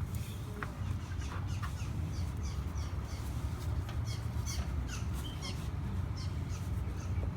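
Birds chirping: a run of short, quick falling chirps, over a steady low rumble.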